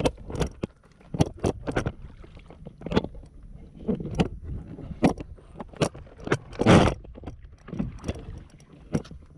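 Close, irregular knocks and rubbing on the canoe as the GoPro is handled and fixed onto the bow, about one a second, with one longer, louder scraping rush about two-thirds of the way through.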